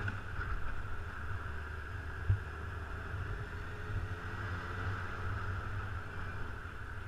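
Motorcycle on the move: a steady low engine drone under wind and road noise, with one sharp thump about two seconds in.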